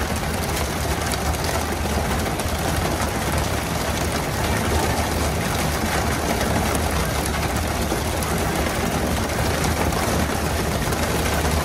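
Fishing boat's engine running with a steady low drone, under a constant rush of water from the spray and wake along the stern.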